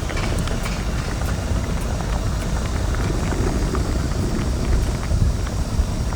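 Chewing a fried chicken cutlet, heard as faint scattered crunchy clicks. Under them is a steady low rumble of background noise, which is the loudest sound.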